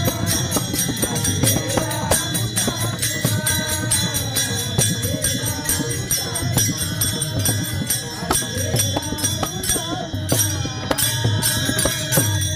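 Varkari procession music: small brass hand cymbals (taal) struck together in a quick steady rhythm over a two-headed mridang drum, with voices singing a devotional gavlan.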